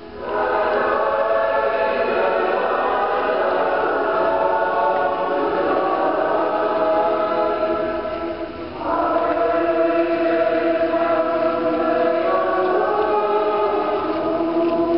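A crowd of many voices singing a religious hymn together in slow, sustained phrases, with a brief break between phrases a little past the middle.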